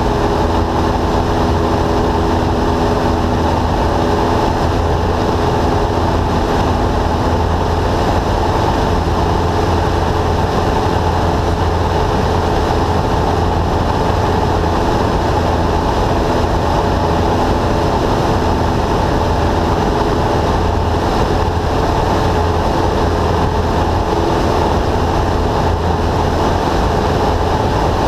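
A Cessna light aircraft's piston engine and propeller running steadily in flight, heard from inside the cockpit, with an even pitch and unchanging loudness.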